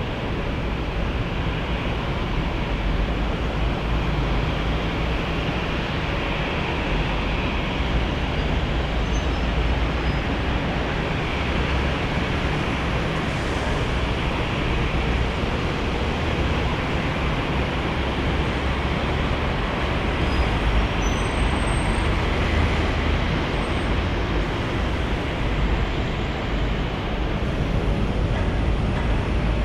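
Steady low rumble of jet airliner engines with a faint high whine that slides in pitch now and then, swelling and easing slightly.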